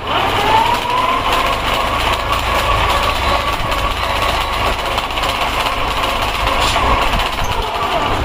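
A small electric motor-driven machine spinning up to a steady whine, running evenly, then slowing down near the end, over a low hum.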